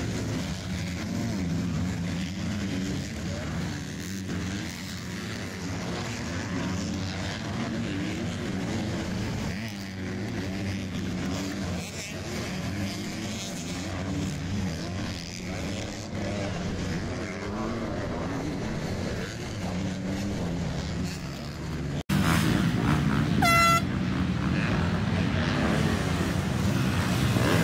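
Motocross bikes racing on a dirt track, their engines revving up and down as they work through jumps and corners. Near the end the bikes are closer and louder, and a short horn toot sounds once.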